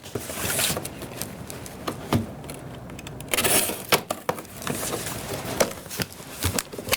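Cardboard shipping box being cut open and handled: irregular scraping, rustling and light knocks of the tape and flaps.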